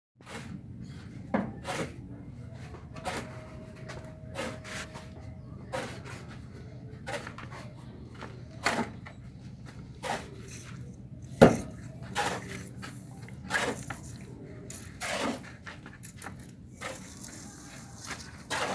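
Steel shovel scraping and striking a concrete floor at irregular intervals while turning a sand-and-cement mix by hand, with the sharpest strike about eleven and a half seconds in.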